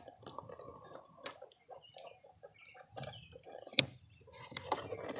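Faint handling noises of small parts being worked by hand: scattered light clicks and rustles, with one sharper click a little past the middle.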